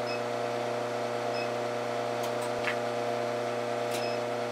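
Induction heater running with a steady electrical hum of several fixed tones while steel wire heats to glowing in its copper work coil, with a few faint ticks over it.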